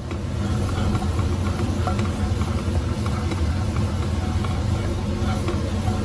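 Steady low hum of a kitchen range hood fan, with a butter-and-flour roux sizzling softly in a non-stick pan and a wooden spatula scraping through it.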